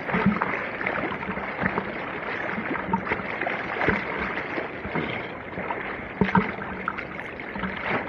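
Sea water sloshing and splashing right at a swimmer's action camera held at the surface, with irregular splashes from his swimming strokes.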